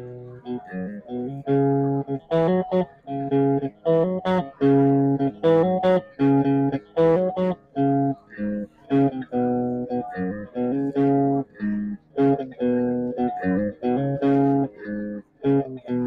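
Stratocaster-style electric guitar played through an amp, noodling in short phrases of single notes and chords with brief breaks between them.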